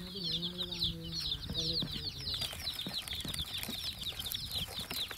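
A group of baby chicks peeping nonstop, a dense chorus of short, high, falling chirps. A low steady hum sounds under them for the first two seconds.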